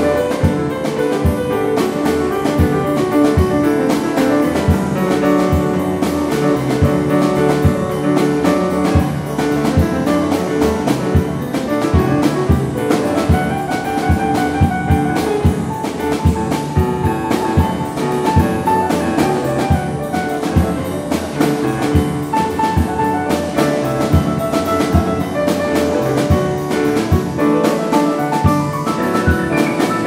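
A small jazz-folk band of flute, cello, piano and drum kit playing a fast Appalachian tune, with a steady, busy drum beat under the melody.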